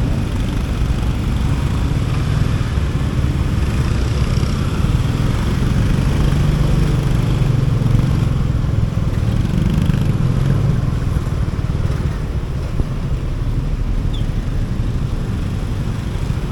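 Motorcycle engine running steadily while riding, with a low drone and road noise; it gets a little louder for a few seconds about midway.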